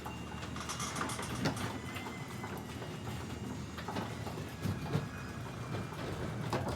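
Garage door opening: a steady rolling rumble and low hum, broken by irregular rattles and clunks, the loudest about a second and a half in and around five seconds in.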